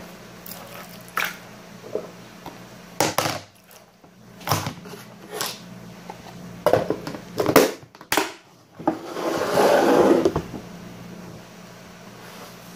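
Pink slime being handled, with a clear plastic storage tub and its lid being handled as the slime is packed away. The sound is a run of short, sharp noises through the middle, then a longer, louder stretch of noise near the end.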